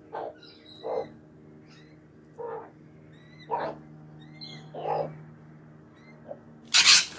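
Domestic hens giving five short clucking calls, a second or so apart, with faint high bird chirps between them. Near the end there is a sudden loud burst of noise.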